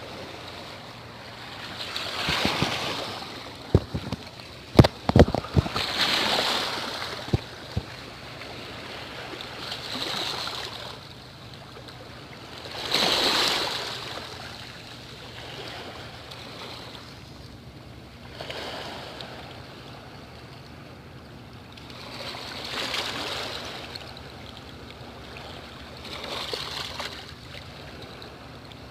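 Sea waves washing in and receding in slow swells every few seconds. A handful of sharp clicks and knocks come close together about four to seven seconds in.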